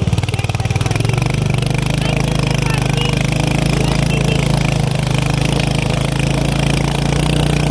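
Royal Enfield Hunter 350's single-cylinder engine and exhaust running steadily under way, its firing pulses even and the pitch level with no revving.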